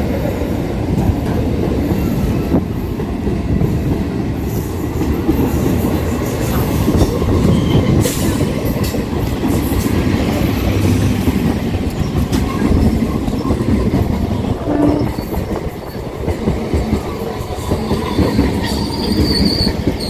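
Two EMU local trains running along the platform on parallel tracks: a steady, loud rumble and clatter of steel wheels on the rails, with a brief high-pitched squeal near the end.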